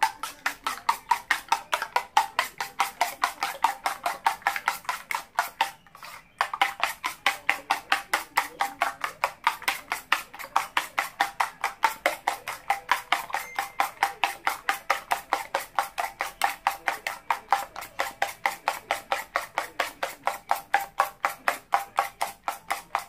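A fork beating raw eggs in a bowl, tapping against the sides in a quick, even rhythm of about five strokes a second, with a short pause about six seconds in.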